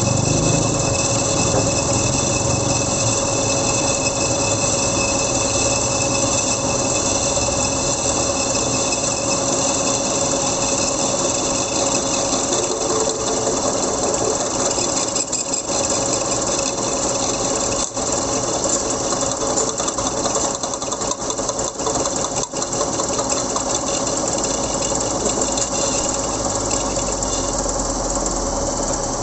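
Metal lathe running steadily with a Yamaha YTX125 wheel hub spinning in the chuck while a cutting tool bores out the aluminium weld built up in its bearing seat: a steady machine hum and whine over a rattling cutting noise. The machining trues an oversized, loose bearing seat so the hub bearing fits tight again.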